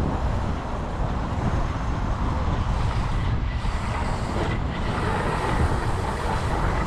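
Steady low rumble of inline skate wheels rolling on a concrete sidewalk, mixed with street traffic noise.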